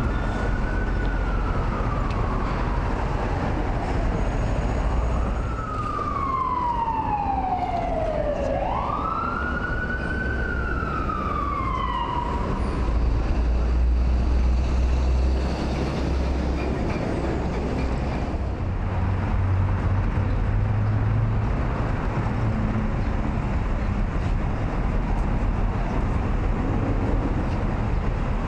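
Emergency vehicle siren wailing in slow rising and falling sweeps for roughly the first twelve seconds, over steady city traffic rumble. The low engine rumble swells about thirteen seconds in and again around twenty seconds.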